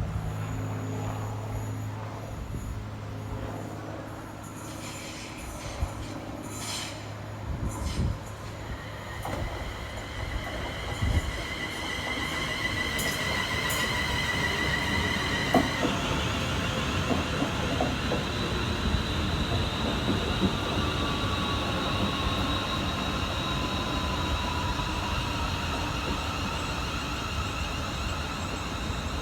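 A train running through the station, its wheels or brakes squealing in several high steady tones from about nine seconds in over the rumble of the train, with a low steady hum in the first part.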